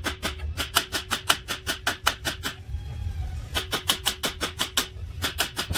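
A hammer striking a car's steel front steering knuckle in quick runs, about six blows a second, each blow ringing briefly. The runs pause about two and a half seconds in, then start again.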